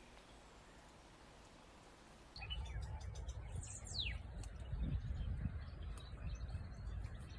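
After about two seconds of faint hiss, woodland birds calling: a few short chirps and one high whistle that falls steeply in pitch, over a low rumble.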